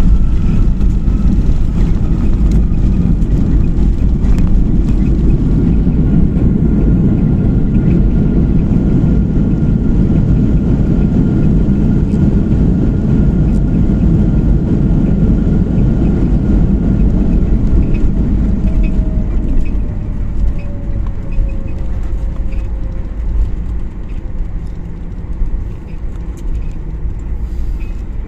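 Jet airliner's cabin noise during the landing rollout: a loud, steady roar of engines and rolling wheels. About two-thirds of the way in the roar eases and a whine slides down in pitch as the aircraft slows.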